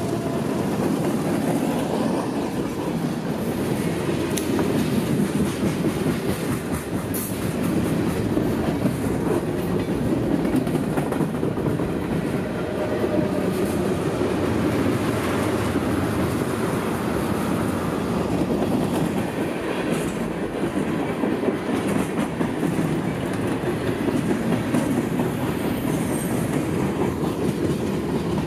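Freight train rolling past at close range: a steady rumble of steel wheels on rail with clickety-clack as tank cars and boxcars go by, a CSX diesel locomotive in mid-train passing at the start.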